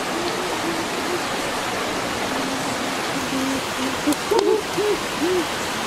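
Steady rush of a small waterfall and stream. Over it come short, low tones that rise and fall, more of them in the second half, and a faint click about four seconds in.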